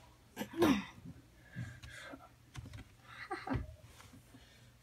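A person's voice making short wordless vocal sounds with a gliding pitch, once about half a second in and again around three seconds in.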